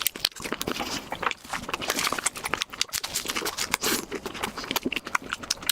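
Close-miked chewing of a mouthful of cooked mushrooms, a dense, irregular run of moist clicks.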